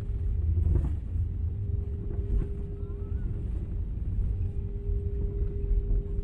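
Cabin rumble of an Airbus A321 rolling along the runway after landing, a steady low roar of wheels and engines with a constant hum over it. A couple of light knocks come through about one and two and a half seconds in.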